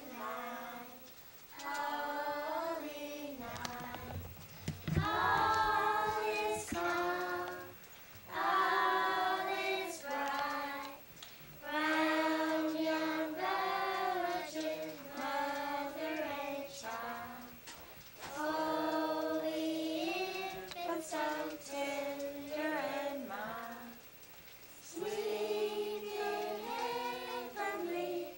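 A group of children singing a Christmas carol together, unaccompanied, in phrases with short breaths between them.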